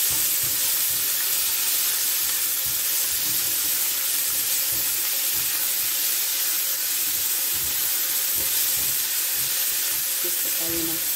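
Pork pieces sizzling steadily in hot oil in a nonstick wok, while a plastic spatula stirs and scrapes them around with soft, irregular strokes.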